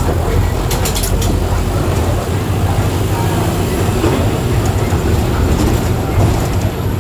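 Diesel engine of a Mercedes-Benz OF 1418 city bus running steadily as the bus drives, with a low engine hum and road noise. A few short rattles or clicks come about a second in.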